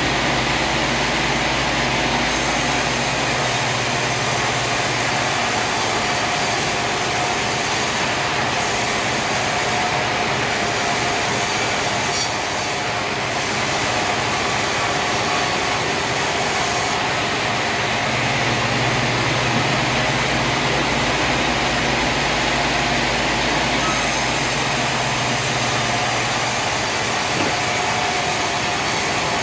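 Sawmill machinery running steadily under load, a dense, even mechanical noise of engine and saw, with slight changes in its low and high bands every several seconds.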